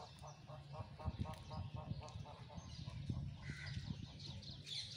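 Animal calls: a fast, even run of short pitched notes, about five a second, for the first couple of seconds, then higher chirping near the end.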